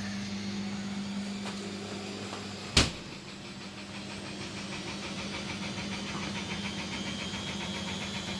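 A steady low mechanical hum from a household appliance, with one sharp click a little under three seconds in.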